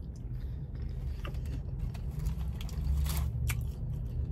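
Close-up chewing and biting into chicken wings, with a few short crunches and wet clicks over a low, steady hum.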